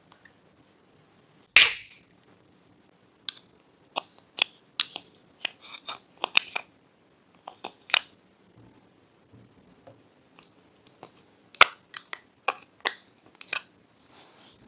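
A series of irregular sharp clicks and knocks, with two louder cracks, one about a second and a half in and one near the end.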